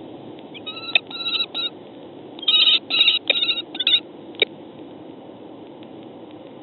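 Female common kestrels calling in a vocal skirmish: two bursts of quick, repeated shrill notes, the second longer and louder, followed by a single sharp click, over a steady hiss from the nest-box microphone.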